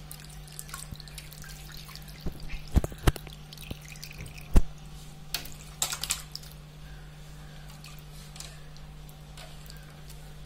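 Water splashing and dripping as hands rinse chopped raw pork in a bowl of water and lift the pieces out, with a few sharper splashes and knocks about a third and halfway through.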